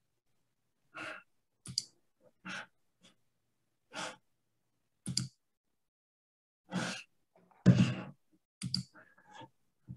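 A man's short sighs and murmurs under his breath, about nine brief sounds with dead silence between them, as heard over a video call.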